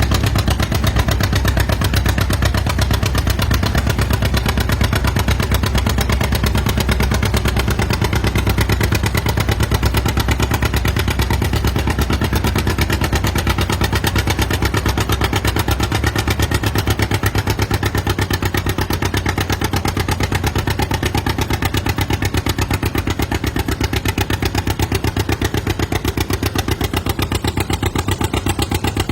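Antique farm tractor engine running steadily, its firing beat rapid and even, easing slightly about two-thirds of the way through.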